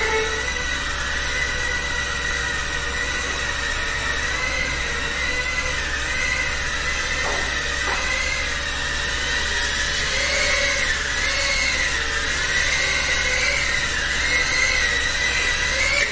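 Small FPV racing quadcopters in flight: their motors and propellers make a steady whining buzz, and the pitch wavers up and down as the throttle changes.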